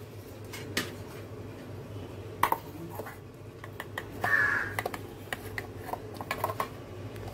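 Small clicks and taps of steel kitchen ware being handled while grated coconut is added by hand to a mixer-grinder jar, over a low steady hum. A brief higher-pitched sound comes about four seconds in.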